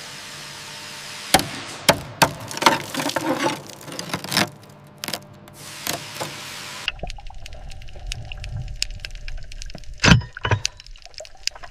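Chains and corroded metal clanking and cracking as a rusted wreck is hoisted, over a steady hiss. About seven seconds in the sound changes to a low rumble with scattered clicks, and a heavy thump comes near the end.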